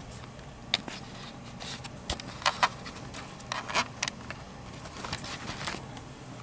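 Scattered light clicks and knocks with a few brief rustles, typical of a handheld camera being handled and carried.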